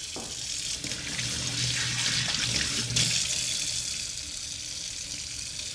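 Water running steadily from a kitchen tap into the sink, with the splashes of cupped hands washing a face under it.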